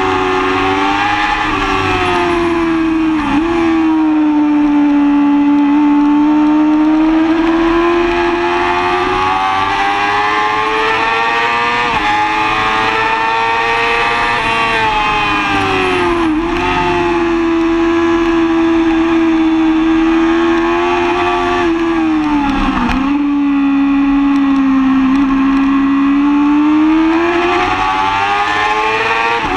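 2005 Yamaha R6's 600 cc inline-four running hard at high revs, its pitch rising and falling with the throttle, with three brief sharp dips in revs. Wind rush sits under the engine.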